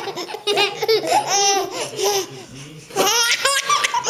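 A baby laughing in quick runs of short, high-pitched calls, breaking off briefly about two and a half seconds in and then laughing again.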